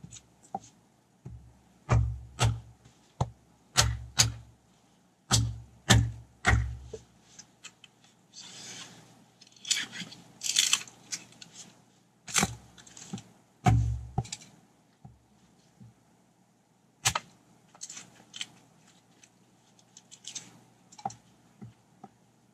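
An axe splitting firewood on a chopping block: a quick run of about ten sharp chops in the first seven seconds, then a crackly, rustling stretch and a few more spaced strikes.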